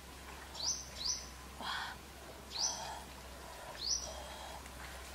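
A bird calling repeatedly: short, high chirps that sweep quickly upward, about once a second, with a few soft rustles in between and a steady low hum underneath.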